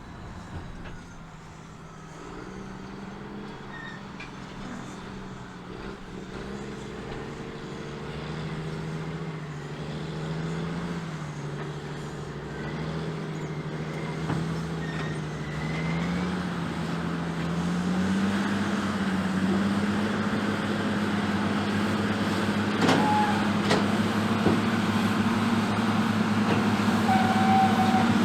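Diesel engines of a Caterpillar 627G twin-engine scraper running under load, growing steadily louder, with the engine note stepping up in pitch a little past halfway. A sharp click about three-quarters of the way in and a brief high tone near the end.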